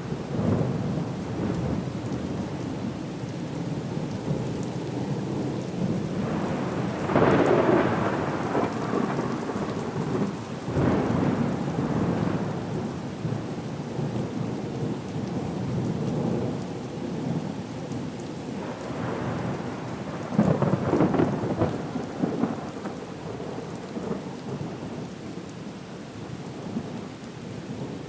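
Storm soundscape: a steady hiss of rain under deep rumbling swells, loudest about seven seconds in and again about twenty seconds in.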